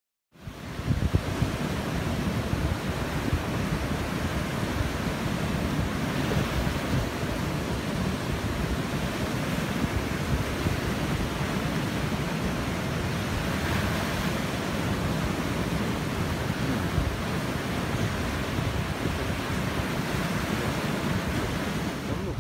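Waves of a rough sea breaking and washing over a rocky shore, with wind buffeting the microphone. The sound cuts in suddenly a moment after the start and then stays steady.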